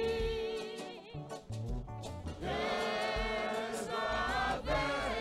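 Congregation singing a hymn together in unison, with long held notes over a bass line. The voices thin out about a second in and come back in full about two and a half seconds in.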